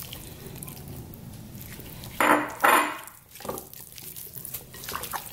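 Diced tomatoes tipped from a container into a glass bowl of seasoned beef ribs, with two short clatters of dishware a little past two seconds in, then soft wet squelching as hands mix the meat and marinade.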